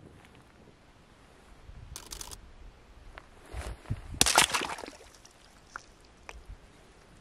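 Thin ice on a frozen pool being cracked and broken up. There is a short crunch about two seconds in, a louder crackling break about four seconds in, then a few sharp ticks of ice pieces.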